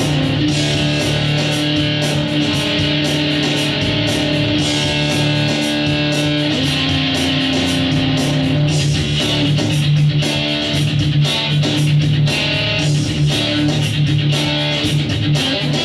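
A 1983 Japanese-made Aria Pro II electric guitar being played, with a continuous stream of picked notes over held, sustained notes.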